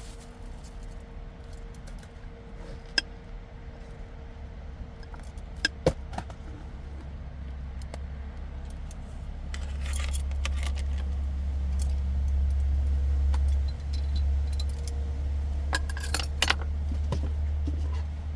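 Scattered light metallic clinks and jingles of small objects being handled, over a steady low rumble that grows louder about ten seconds in.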